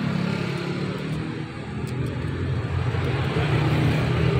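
A steady low mechanical rumble, like an engine running, that grows louder toward the end.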